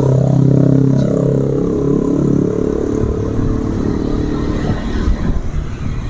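A motor vehicle passing close by on the road, its engine note dropping in pitch as it goes past during the first few seconds, then fading into a low traffic rumble.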